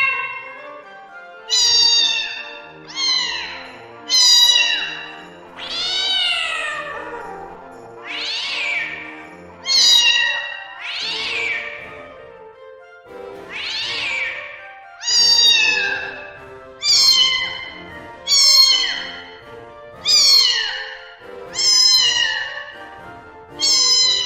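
A cat meowing again and again: about fourteen drawn-out meows, roughly one every second and a half, many rising and then falling in pitch.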